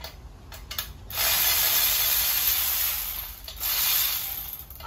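Rough scraping, rubbing noise in two stretches: one of about two seconds starting about a second in, then a shorter one near the end.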